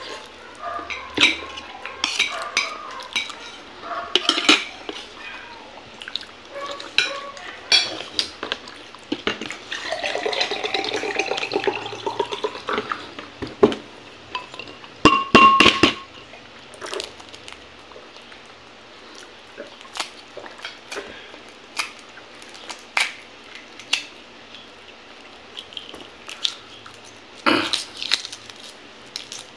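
Eating at a plate: a spoon and fingers clinking and scraping on the plate, with scattered sharp clicks and a brief ringing clink about halfway through. Near the end comes a short cluster of loud clicks as a boiled egg's shell is cracked for peeling.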